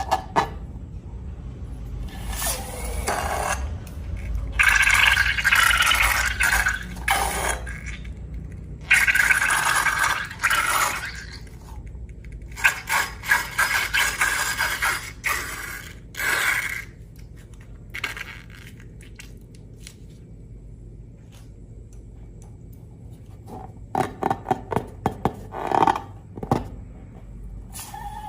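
Slime being worked by hand: irregular scraping and squishing bursts of a second or two each, with a run of quick sharp clicks near the end.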